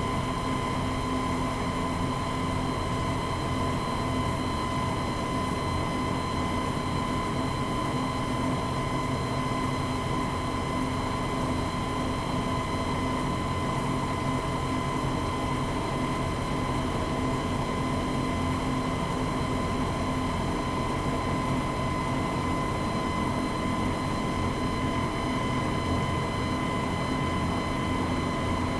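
Diamond wire saw running steadily through granite, the wire whirring over its guide wheels with a steady whine, while coolant water splashes off the wire and stone.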